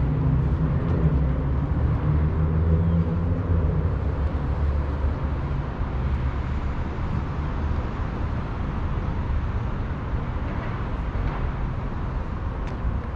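Outdoor street traffic noise: a vehicle engine's low hum, strongest for the first few seconds and then fading into a steady city rumble.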